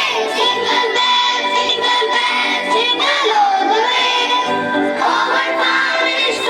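Music with singing voices: held, pitched notes carry on without a break.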